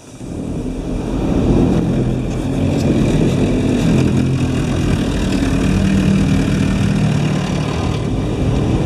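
High-pressure water jets of a Laserwash G5 touchless car wash blasting the car's windshield and body, heard from inside the cabin. The spray builds over the first second or so into a steady, loud rush with a low hum under it.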